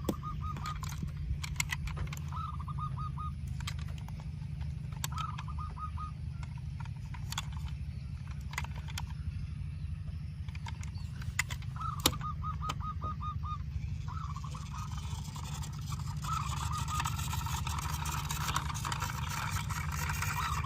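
Fowl calling in short, rapid trilled bursts, repeated many times and more often in the second half, over a steady low hum with scattered clicks.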